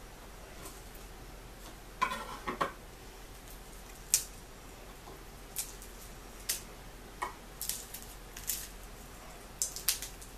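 Chef's knife cutting the tips off garlic cloves on a wooden cutting board: a short burst of knife cuts and knocks on the board about two seconds in, then scattered sharp little clicks and taps as the cloves are handled and the knife is set down.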